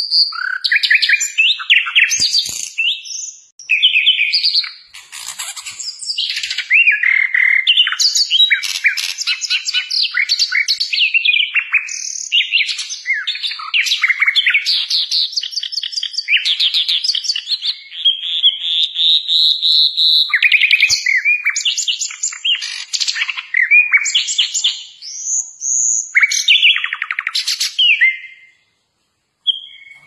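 Nightingale singing a varied song of rapid repeated notes, trills and clear whistles, including a longer held whistle in the middle, with short breaks about three and a half seconds in and near the end.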